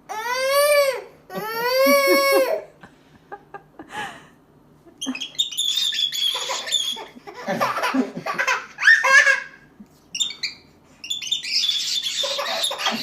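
A baby's two long squealing cries, rising then falling in pitch, in the first few seconds, then bursts of laughter and high squeals on and off.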